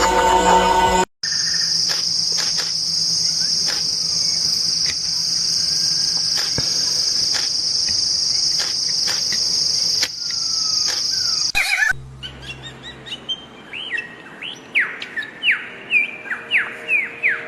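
A steady, high-pitched insect drone runs for about ten seconds and stops abruptly. After a break, a bird calls over and over in short, quick notes that sweep downward in pitch, getting faster toward the end.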